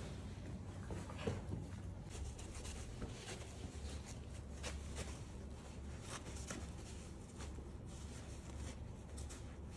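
Soft, scattered scratchy rustling of a kitten and a miniature schnauzer scuffling inside a nylon play tunnel, their paws and bodies brushing and scraping the fabric.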